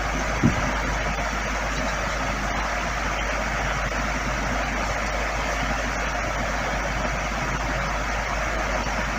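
Steady rushing background noise, with a single low thump about half a second in.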